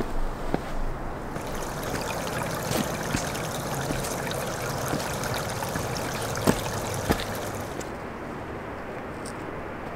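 A small stream of water running and trickling, with a few footsteps on rock. The water sound dies down near the end.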